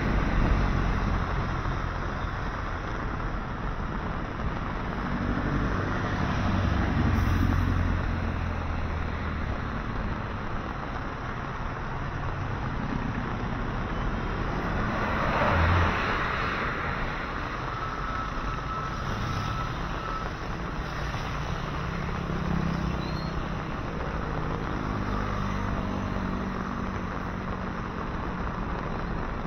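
Road traffic: vehicles passing by over a steady hiss, with louder passes about a quarter of the way in and again around the middle.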